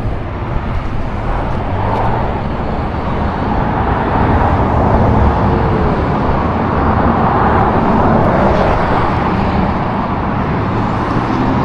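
Road traffic passing close by: a loud, steady rush of tyres and engines that swells for a few seconds in the middle.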